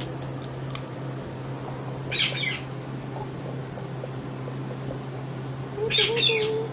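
Parrot squawking: two short harsh squawks, about two seconds in and again near the end, over a steady low hum.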